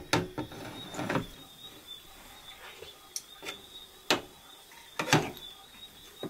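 Scattered knocks and clinks of kitchen utensils being handled, a few at a time, the loudest pair about five seconds in, over a faint steady high-pitched tone.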